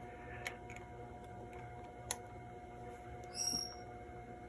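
Faint clicks of power-supply clip leads being worked onto a transistor radio's battery terminals, over a low steady hum, with a short high chirp about three and a half seconds in.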